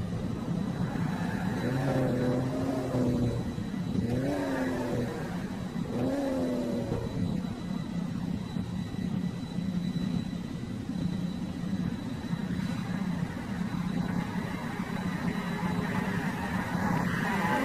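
Toy car engine sound effect: a steady engine hum with revs that rise and fall three times in the first seven seconds and once more near the end.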